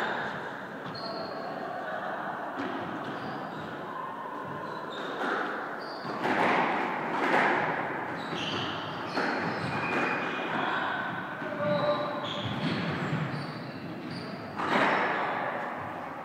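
Squash rally: the ball smacking off rackets and the court walls at irregular intervals, echoing in the enclosed court, with short squeaks of shoes on the wooden floor.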